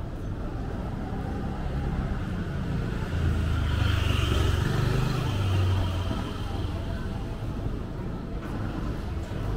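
A car passing on a street, its engine rumble and tyre hiss swelling about three seconds in and fading by about six seconds, over steady low traffic noise.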